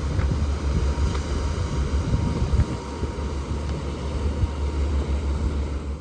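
Wind noise on the microphone over a steady low droning and the rush of water, aboard a sailboat under way in strong wind.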